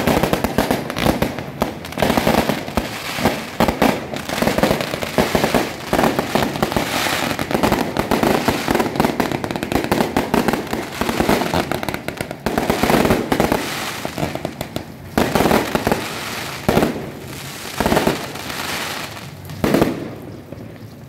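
Aerial fireworks bursting overhead amid a dense, continuous crackle of firecrackers, with clusters of louder bangs. The barrage thins out near the end.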